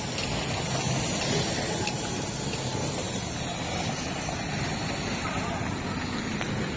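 Steady street traffic noise, with three-wheeled auto-rickshaws driving past close by.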